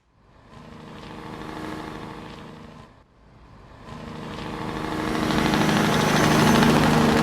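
A large vehicle engine running steadily, fading in, then breaking off about three seconds in before a second stretch of engine sound swells louder toward the end.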